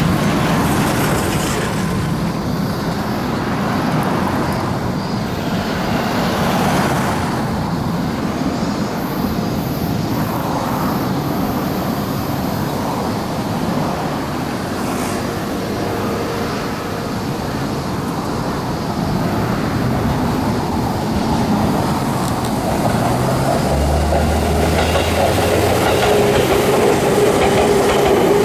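Electric train running along the line, a steady rumble of wheels on rail. Rising tones join near the end, as the train's motors pick up.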